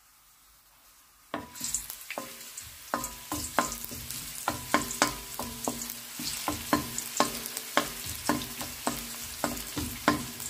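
Minced shallots frying in hot oil in a wok, browning as the base for fried rice. The sizzle starts suddenly about a second in and keeps going, while a wooden spoon stirring them knocks against the pan a couple of times a second, each knock leaving a brief ring from the wok.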